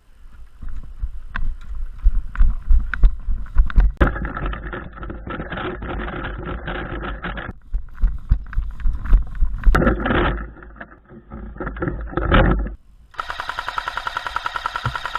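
Rumbling, thumping movement noise on a helmet camera. About two seconds before the end, an A&K PKM airsoft electric light machine gun opens up in a continuous fully automatic burst, an even rapid rattle of shots.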